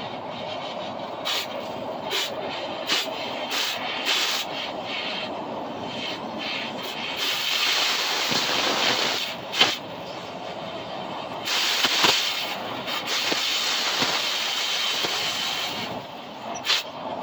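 Scattered sharp metallic clicks and knocks from trailer wheel bearing parts being worked out of the hub, over a steady hiss that swells twice.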